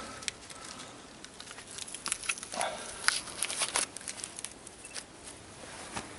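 Foil wrappers being crumpled and torn by hand, giving irregular crinkles and crackles.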